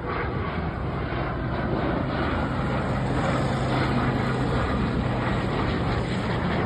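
BAE Hawk jet trainer passing overhead, its jet engine making a steady rushing noise that grows slightly louder.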